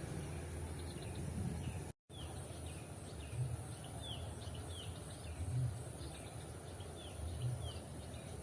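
Outdoor ambience with a steady low rumble. A small bird repeats short, falling chirps many times, and a few soft low thumps sound in the background. The sound cuts out briefly about two seconds in.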